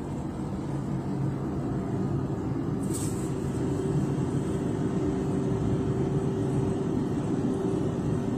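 Automatic car wash's drying blowers running steadily, a loud rush of air with a low hum, heard from inside the car as the overhead dryer nozzle passes over the windshield.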